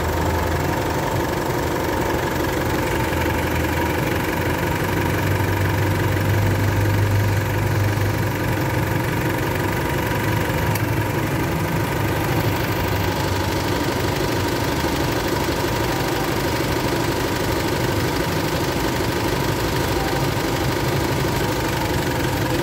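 Isuzu MU-X diesel engine idling steadily with a fast, even clatter, a little louder about six to eight seconds in.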